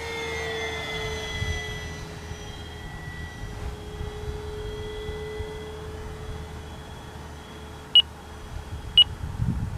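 Electric model plane's brushless motor and propeller whining in flight, the pitch sliding slowly down. Near the end the radio transmitter's flight timer gives two short beeps a second apart, counting down its last seconds.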